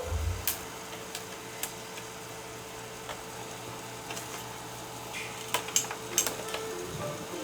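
Scattered small clicks and taps from handling an opened laptop, with a cluster of sharper clicks about five and a half to six seconds in, over a faint steady hum.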